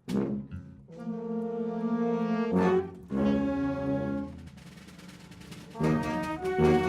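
Orchestral music led by brass, playing long held chords. It opens on a sharp hit and swells back in with a new chord near the end.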